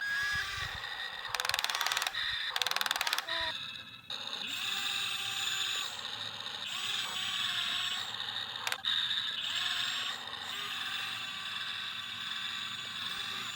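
Radio-controlled model excavator's small electric gear motors whining as it works, with two short bursts of rapid gear clicking in the first few seconds.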